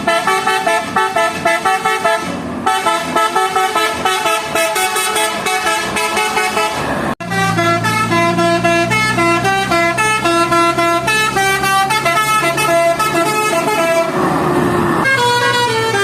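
Indonesian bus 'telolet' musical horns playing quick tunes of stepping notes. A brief drop-out about seven seconds in is followed by a different horn tune over a steady low drone. A short rush of hissing noise comes near the end, just before another tune starts.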